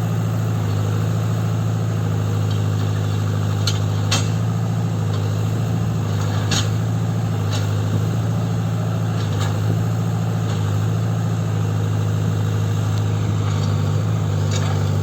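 Tata Hitachi Zaxis 120 excavator's diesel engine running at a steady idle, with a handful of short sharp clicks over it.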